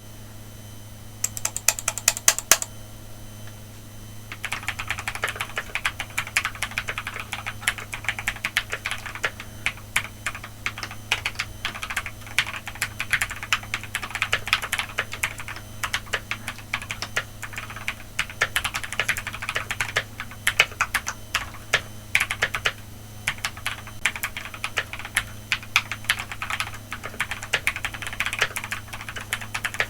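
Typing on a BM65 65% mechanical keyboard with Ajazz Diced Fruit Peach linear switches and PBT double-shot Cherry-profile keycaps, in a plastic case dampened with a silicone pour and a felt layer. A few separate keystrokes come first, then fast continuous typing from about four seconds in, over a steady low hum.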